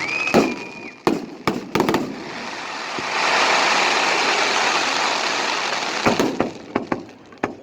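Fireworks going off: a brief whistle, a quick string of sharp bangs, then about three seconds of steady hissing crackle, and a few more bangs near the end.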